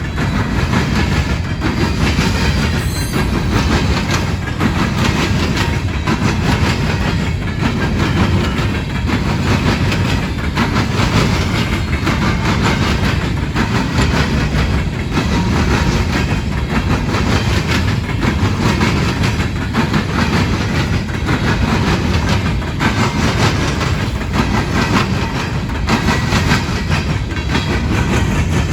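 Coal train's hopper cars rolling over a railroad diamond crossing: a steady heavy rumble with a rapid, repeated clatter of wheels striking the crossing.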